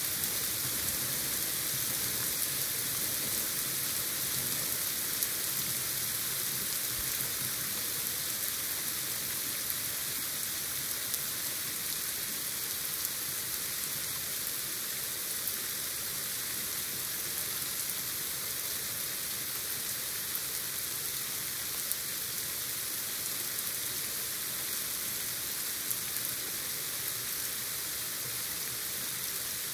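Heavy rain pouring down in a steady hiss, with the odd louder drop ticking through it.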